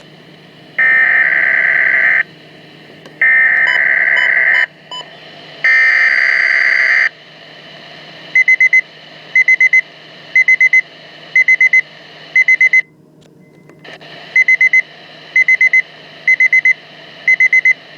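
Weatheradio Canada SAME alert data header: three harsh, warbling digital bursts of about a second and a half each. These are followed by a weather radio receiver's alarm beeping in quick groups of four, about once a second, signalling a freezing rain warning. A low electrical hum runs underneath.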